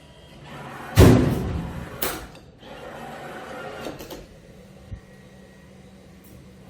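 Claw machine at work: a loud knock about a second in, ringing away over the next second, a second knock shortly after, then a steady whir of the machine and a small click near the end.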